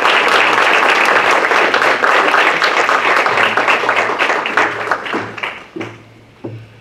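Audience applauding, loud at first, then thinning out and fading about five to six seconds in, with a few knocks near the end.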